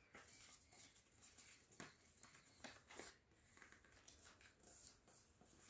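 Near silence, broken by a few faint, short ticks and rustles of a paper sheet being handled and folded by hand.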